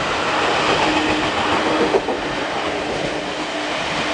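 Seibu 2000 series electric commuter train running past close by: a loud, steady rumble of wheels on rail with a faint steady hum. The level drops a little about two seconds in.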